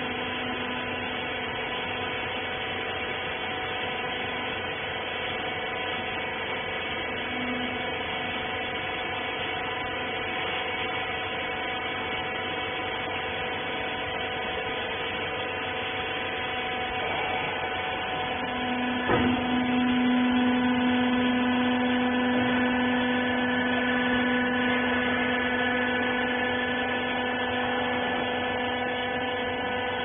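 Rag baler's motor running with a steady hum. About two-thirds of the way through there is a click, and a lower hum joins for several seconds as the machine gets a little louder.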